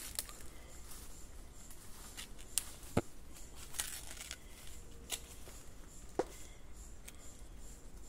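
Bamboo shoot being peeled with a knife: the dry husk cracks and tears with a few scattered sharp snaps over soft rustling.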